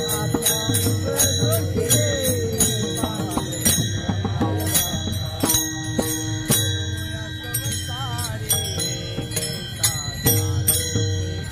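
Marathi devotional bhajan music: small hand cymbals struck in a quick steady beat, with a drum and a singing voice.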